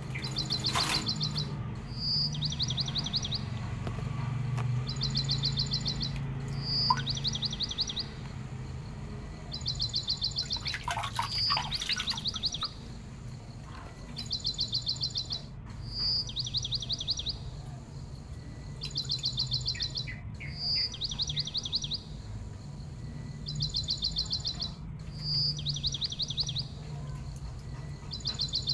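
Small songbird's high, rapid trills, each followed by a short clear whistled note, repeating in the same pattern about every five seconds over a low steady hum.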